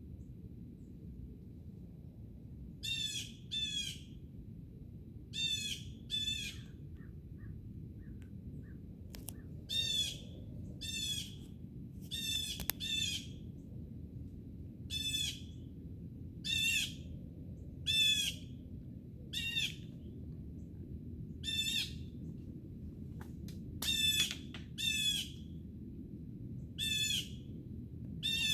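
A bird giving short, harsh squawking calls again and again, often in pairs, over a steady low background rumble.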